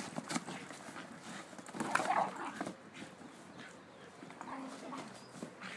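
A Scottish terrier vocalising as it tackles a cardboard box, with short dog sounds that are loudest about two seconds in. Light knocks of the box being pushed and bitten come through among them.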